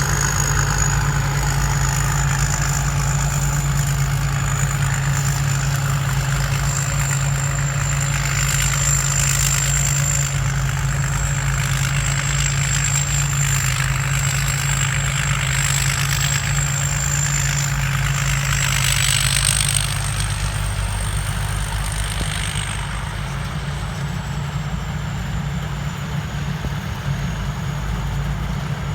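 Turbocharged diesel engine of a rice combine harvester running steadily, with a high turbo whistle over the engine's low drone. The whistle rises briefly about twenty seconds in, then the sound eases slightly.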